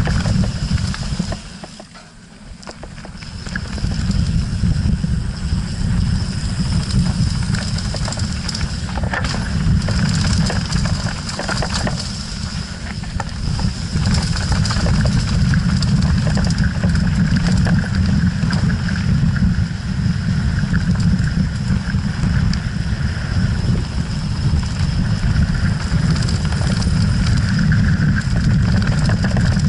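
Wind buffeting an action camera's microphone on a Canyon Strive mountain bike descending a rocky gravel trail, with the tyres crunching and the bike rattling over stones. The rush drops briefly about two seconds in, then stays loud and steady.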